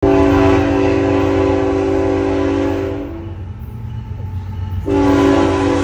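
Approaching BNSF diesel locomotive's air horn sounding a steady multi-note chord, which stops about three seconds in and starts again about a second and a half later, over a steady low rumble.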